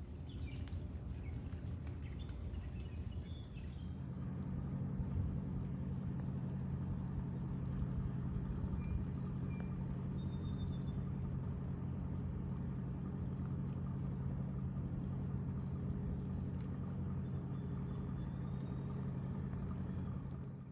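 A steady low machine hum with a couple of fixed tones in it, getting louder about four seconds in. Scattered high bird chirps sound over it in the first few seconds, with a few more later.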